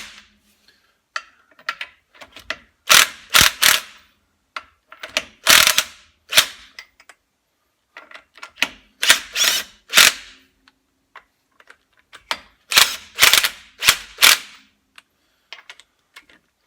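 Power impact wrench hammering lug nuts onto the wheel-adapter studs, in about five short groups of quick rattling bursts, one group every three to four seconds as each nut is run down.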